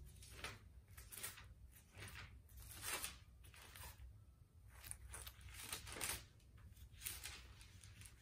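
Bible pages being leafed through by hand: a string of soft paper rustles and swishes, with a faint steady low hum underneath.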